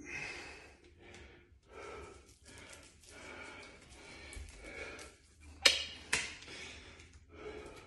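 A man breathing hard through the mouth in short, audible breaths while flexing through bodybuilding poses. Near the end come two sharp knocks about half a second apart, the loudest sounds here.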